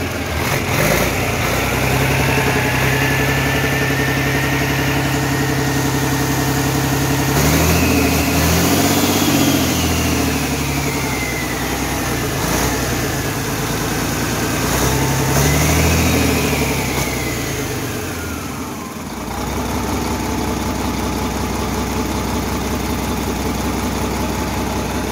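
Caterpillar 3306 DI inline-six diesel engine running on a stand after standing 15 years, idling and revved up twice before settling back to a steady idle. A high whine rises and falls with the revs.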